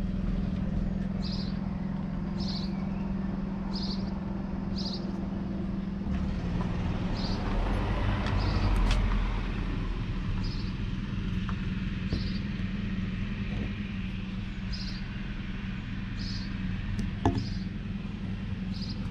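Deutz-Fahr 5115 DF TTV tractor's 3.8-litre four-cylinder diesel idling steadily, with a small bird chirping again and again. A rush of noise swells briefly about eight seconds in, and there is a single sharp click near the end.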